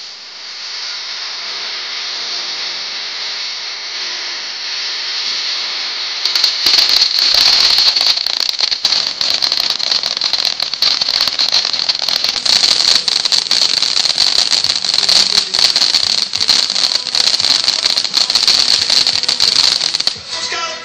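Ground fountain firework burning with a steady high hiss; about six seconds in it flares up louder and crackles densely, then cuts off near the end.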